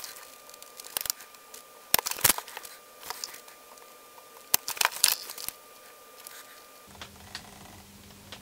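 Sharp clicks and snaps of a spring-loaded desoldering pump being cocked and fired, sucking solder off a capacitor's leads on a circuit board. The loudest pair of snaps comes about two seconds in, with another cluster of clicks around five seconds.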